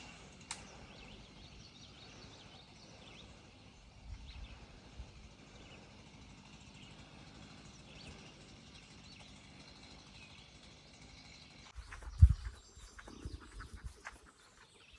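Quiet outdoor ambience with faint, scattered birdsong. About twelve seconds in comes a sudden low thump, followed by a few smaller knocks.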